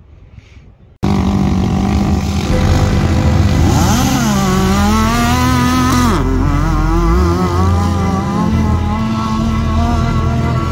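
Off-road engines revving: a dirt bike and a Yamaha YXZ side-by-side. The engine pitch rises and falls, with a sharp drop about six seconds in. The sound cuts in suddenly about a second in.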